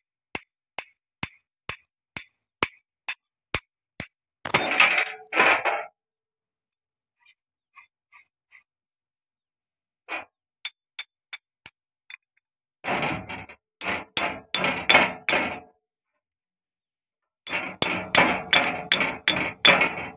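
A small hammer striking the worn clutch release bearing and its collar from a John Deere 5310 tractor: first single, ringing metal taps about two a second, then several runs of quick, heavier blows.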